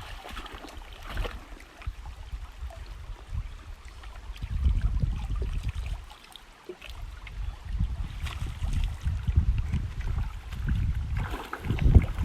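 Low, gusting rumble of wind on the microphone over the faint wash of river water.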